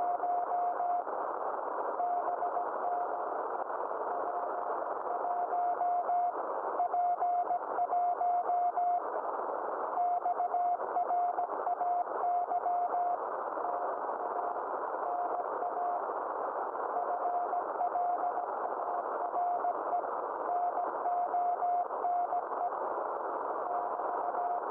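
Morse code (CW) from the DK0WCY aurora beacon on 3579 kHz, heard through a shortwave receiver as a single steady tone keyed on and off in dots and dashes over a constant hiss of band noise. It is sending its space-weather bulletin, solar wind and density figures.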